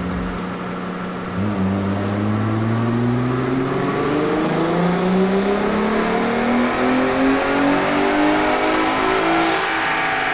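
Ford F-150's 3.5 L twin-turbo EcoBoost V6 under wide-open throttle on a chassis dyno. About a second and a half in it gets louder, then its revs climb steadily through a dyno pull. A faint whistle rises in pitch a few seconds in, and there is a short hiss near the end.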